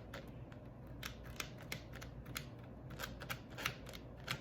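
Small metal tweezers clicking shut again and again as hairs are plucked from a wig's lace frontal: a string of short, irregular clicks, several a second.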